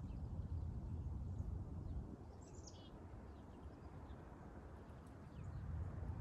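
A bird calls once, a short falling run of high chirps about two and a half seconds in, over a steady low rumble of outdoor noise that eases off in the middle.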